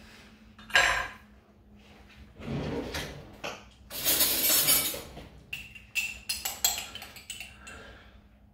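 Kitchen utensils and dishes handled while capers are spooned out: a knock about a second in, a spoon scraping for about a second midway, then a quick run of light clinks.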